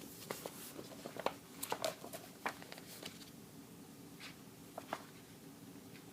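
Magazine pages being handled and turned: a cluster of soft rustles and light taps in the first three seconds, then a couple more about four to five seconds in.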